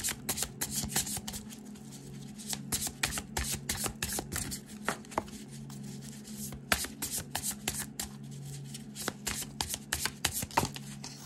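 A fresh Rider-Waite tarot deck being shuffled by hand: a quick, uneven run of card clicks and slaps, over a steady low hum.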